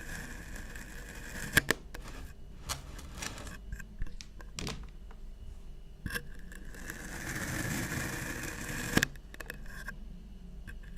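Kinetic sand being cut and scraped with a tool: a soft, gritty scraping with a few sharp clicks, the loudest about a second and a half in and again near the end.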